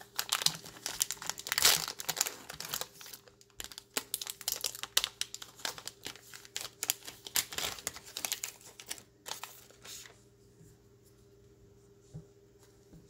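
Shiny plastic wrapper of a 2017 Topps Series 1 baseball card pack crinkling as it is torn open by hand, a rapid crackle. The crackle stops about ten seconds in, leaving only faint handling of the card stack and a small click near the end.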